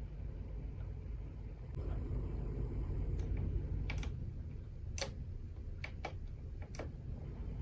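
Rotary knobs on a wall control panel being turned, including the air-conditioner fan switch (off, low, high). About half a dozen sharp clicks come in the second half, the loudest a little past the middle. A steady low hum runs underneath.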